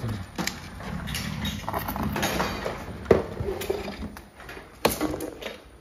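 Plastic toys knocking and clattering against each other and the sides of a clear plastic storage box as they are handled, with a few sharp clacks, the loudest about three seconds in and another about five seconds in.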